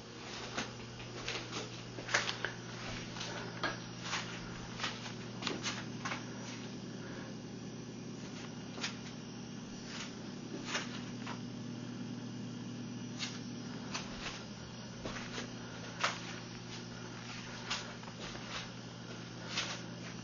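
Amplified room tone: a steady low electrical or fan-like hum, with irregular soft clicks and taps scattered through it.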